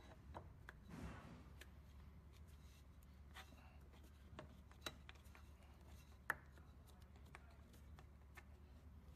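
Near silence with faint, scattered clicks and taps from hands handling the pulley wheel and sensor bracket inside the exercise machine's metal frame, with one sharper click about six seconds in. A faint low hum runs underneath.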